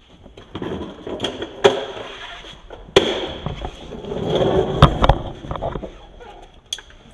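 Clattering and rustling handling noise with four sharp knocks and thuds spread through it.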